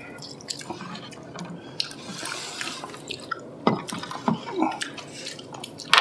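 Wet eating sounds of acorn jelly being chewed and slurped, with short sharp clicks of chopsticks against a bowl, the loudest a little over halfway through.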